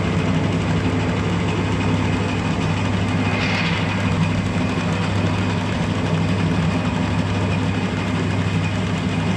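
Diesel injection-pump test bench running steadily, its drive spinning a Mitsubishi 4D56 distributor-type injection pump with a low, even hum. A brief hiss comes about three and a half seconds in.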